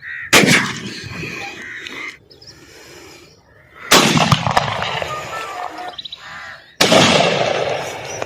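Three shotgun shots about three seconds apart, each followed by a tail that fades over a second or so. Background music plays under them.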